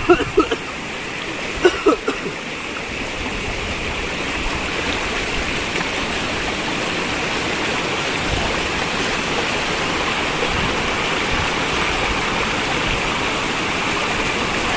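Shallow river water rushing steadily over rocks and through a small cascade, a little louder after the first couple of seconds. A few short sharp sounds come in the first two seconds.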